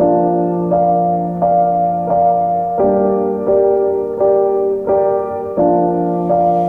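Background piano music: soft sustained chords changing about every three quarters of a second.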